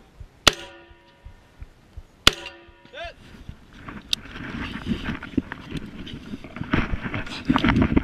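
Two gunshots about two seconds apart, each followed by a steel target ringing briefly. Then scuffing and rustling movement noise grows louder.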